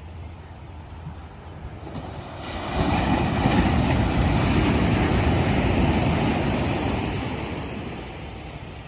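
Ocean waves breaking on a beach: a low wash, then a wave crashes about two and a half seconds in and its surf rushes loudly for several seconds before fading away.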